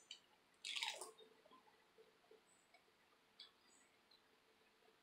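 A single crisp crunch about a second in as a bite is taken from a fried tortilla tostada shell, followed by a few faint chewing clicks.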